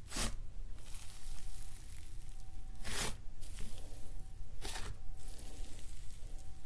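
Thick tan slime being pressed, pulled and folded by hand, giving three short crackling, tearing squelches about two seconds apart.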